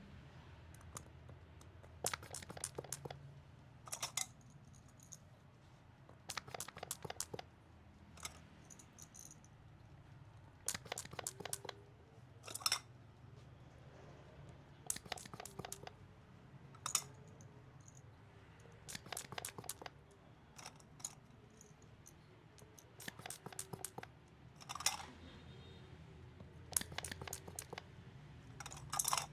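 Massage on bare skin: short bursts of rapid crackly clicks from hands or tools working the skin, coming every two to four seconds over a low steady hum.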